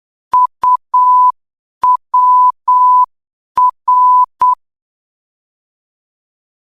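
Morse code practice tone, a single pure beep near 1 kHz keyed in dits and dahs: three letters, dit-dit-dah, dit-dah-dah, dit-dah-dit (U, W, R), each separated by a short pause. Some tones start with a faint click.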